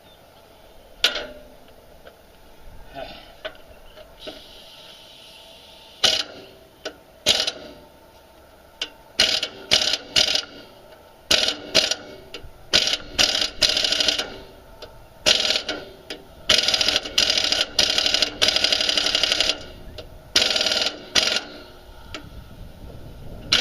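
Pneumatic wrench running in repeated short and longer bursts on the mower engine's mounting bolts, which are snapping off rather than coming loose. The bursts begin about six seconds in and stop near the end.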